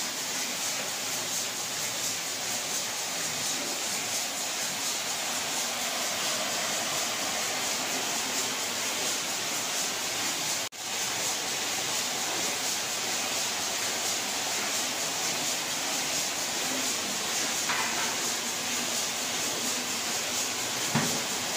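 Rotary egg-breaking machine running: a steady hissing, rattling mechanical noise. It cuts out for an instant about halfway through, and there is one short knock near the end.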